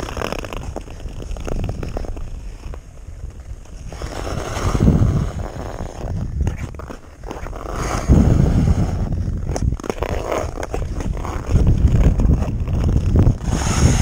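Yamaha Kodiak 450 ATV's single-cylinder four-stroke engine running as it rides over ice, revving up and dropping back several times.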